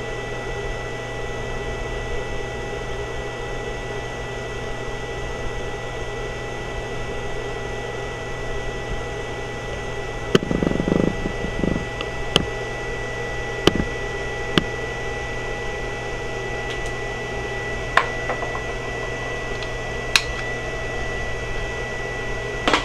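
Steady hum with a thin high whine from a homemade Meyer 8XA pulse circuit and its small cooling fan, running while pulsing an HHO water fuel cell. A few sharp clicks and knocks come in from about ten seconds in.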